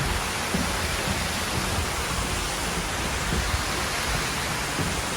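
Steady rush of running water in a garden pond.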